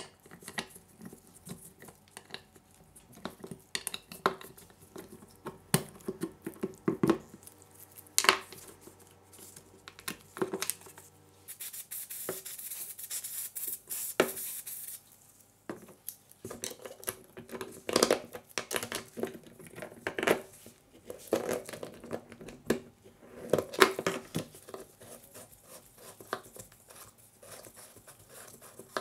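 Metal clinks, taps and scrapes of a hex key and hands working on the steel body and parts of pneumatic pruning shears being taken apart. About twelve seconds in, an aerosol spray can hisses steadily for about three seconds, spraying the shears' body.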